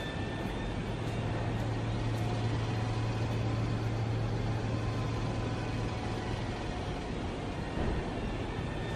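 Old bronze time bell ringing on after a stroke, its tones slowly fading and then swelling again near the end, over a steady low drone.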